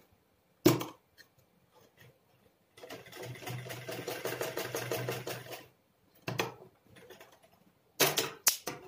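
Domestic sewing machine stitching a seam closed: a steady run of rapid needle strokes for about three seconds in the middle. A loud clack comes just under a second in, and more clacks come near the end.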